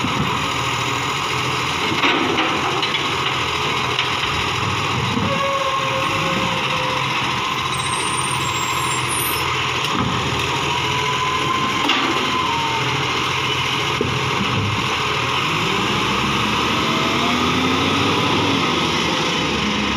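Side-loading garbage truck running while its automated arm lifts and empties wheelie bins, with a few sharp knocks from the bins and arm. In the last few seconds the engine note rises as the truck pulls away.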